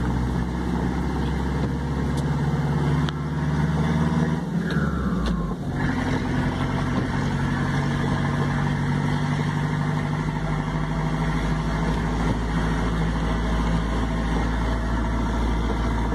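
Vehicle engine and road noise heard from inside the cab while driving in traffic. The engine note drops once about five seconds in, then runs steady.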